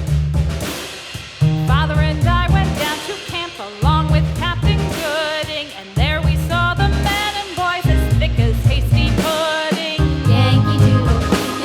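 Background music: a wavering melody line with vibrato over a repeating bass pattern and drums.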